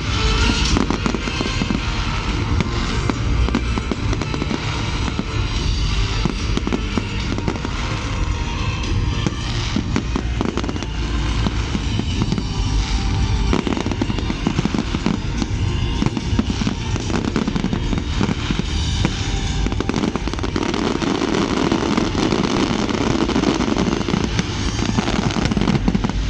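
A dense, continuous barrage of fireworks going off, with many bangs and crackles overlapping, and music playing underneath.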